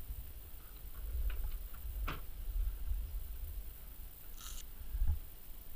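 Leather riding gloves being pulled on and handled, with a few soft clicks and a short rasping rip about four and a half seconds in as a hook-and-loop wrist strap is fastened. A low rumble runs underneath.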